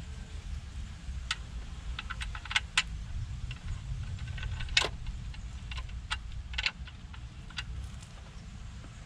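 Irregular light metallic clicks and clinks from hand work on a car's clutch pressure plate and flywheel, with a louder clink about five seconds in. A steady low rumble runs underneath.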